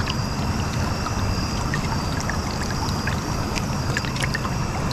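Creek water running steadily, with a scattering of small ticks and drips over the even rush.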